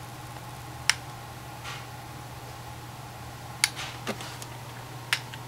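A few sharp clicks and light knocks, about four in five seconds, over a steady low hum.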